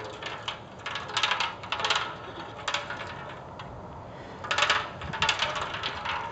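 Steel lawn roller pushed over grass, its handle and axle clinking and rattling with short metallic clicks in uneven bursts, quieter for a moment about halfway through.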